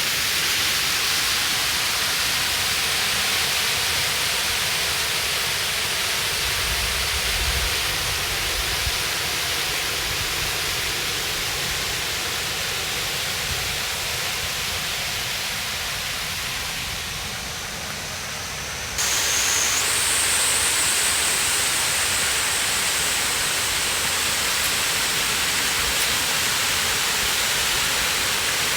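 Kurotaki waterfall: a wide, low fall of water pouring over a flat rock ledge in a steady rush. About two-thirds of the way through the sound changes abruptly, and a thin, steady high whine joins the rushing water.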